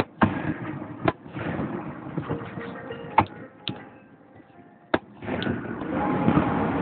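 Fireworks bursting: about half a dozen sharp bangs over a continuous rough crackle that grows louder over the last two seconds.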